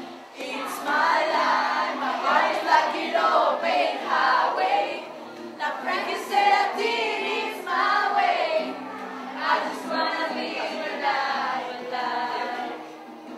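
A group of teenage girls singing loudly together.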